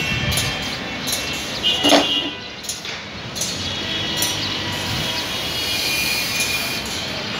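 Steady city traffic noise, with a brief louder sound about two seconds in.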